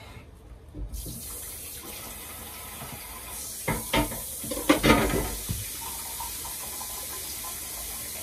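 Kitchen tap turned on about a second in and running steadily into the sink, with a few loud knocks and clatters in the middle as something is handled under the water.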